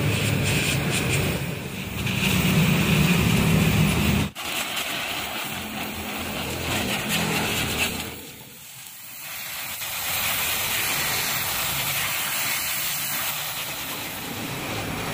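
Gas welding torch flame hissing steadily as it welds rusted-through metal. A low hum lies under it for the first four seconds and cuts off abruptly; the hiss carries on, dropping briefly about eight seconds in.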